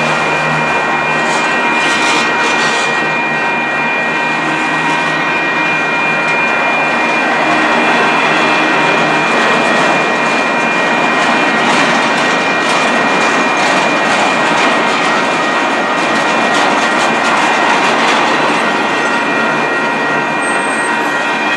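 Long train of empty freight flatcars rolling past at close range: a steady rumble of steel wheels on rail, with a continuous high-pitched squeal of several tones running through it and occasional faint clicks.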